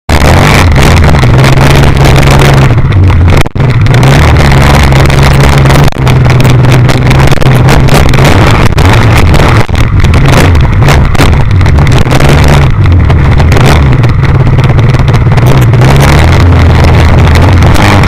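Model airplane engine running, heard through a camera mounted on the plane, very loud and overloading the microphone, its pitch shifting up and down with the throttle.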